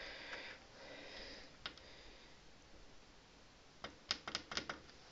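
Faint clicks and taps from handling a computer motherboard and its cables: one click a little under two seconds in, then a quick run of about five clicks near the end.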